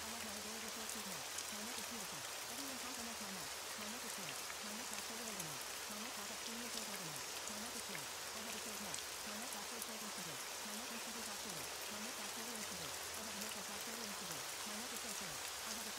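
Steady rain on a surface, with a faint layered voice track of spoken affirmations underneath, heard as repeated short falling-pitched syllables too low and blurred to make out.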